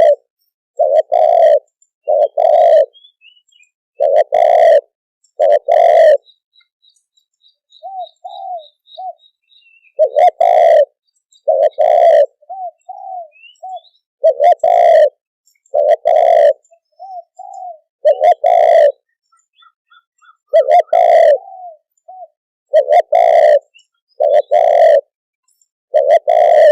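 Spotted dove cooing over and over: loud, low coos in runs of two or three, with softer, shorter notes in the pauses between runs. A small bird chirps faintly and high in the background.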